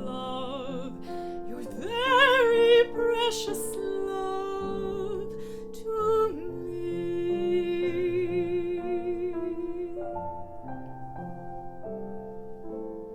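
Woman singing with wide vibrato over piano accompaniment, holding a long wavering note in the middle. Toward the end the voice stops and the piano chords die away.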